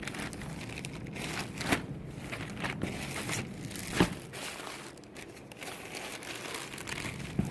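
Plastic packaging crinkling and rustling as new dress shirts in their bags are handled, with sharper clicks about two and four seconds in.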